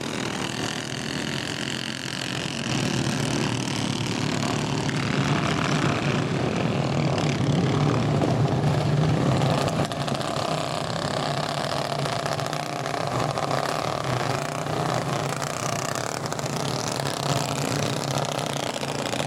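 Several small go-kart engines running, some idling and some driving around the track. The sound gets louder about halfway through, then eases.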